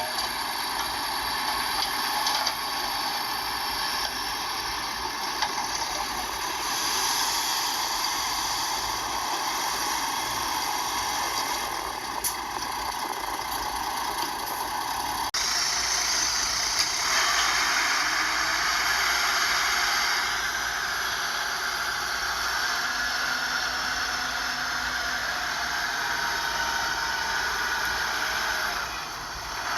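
Heavy earthmoving equipment's engine running steadily, with the character of the sound changing abruptly about halfway through.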